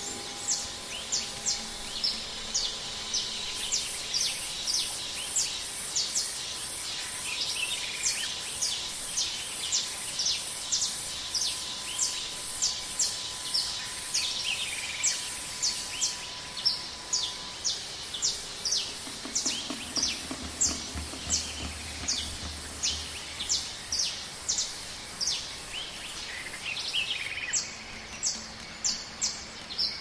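Jungle ambience recording: a bird calling in short, high, falling chirps, repeated about two to three times a second over a steady hiss of forest background. A faint steady tone sits under it in the first half, and a low rumble comes in for a few seconds past the middle.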